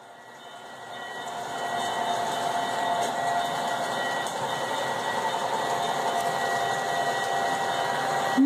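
Model train locomotive running along layout track: a steady hum and rumble that grows louder over the first two seconds and then holds even.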